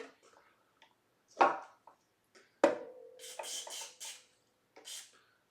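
Two sharp knocks from handling guitar parts and tools, the second leaving a brief ringing tone. Then a few short hissing bursts of DeoxIT contact cleaner being sprayed into the guitar's potentiometers.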